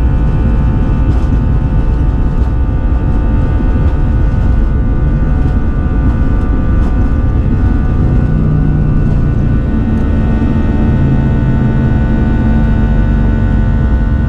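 Airbus A320 cabin noise from inside the cabin: the jet engines running steadily at high power with a low rumble and a set of steady whining tones.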